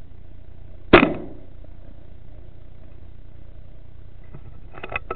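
A single shot from a .22 FX Wildcat pre-charged air rifle about a second in: one sharp, loud crack with a short tail. It sounds particularly loud because the seal on the pellet probe has blown out and is leaking air around the probe. A few quick clicks follow near the end.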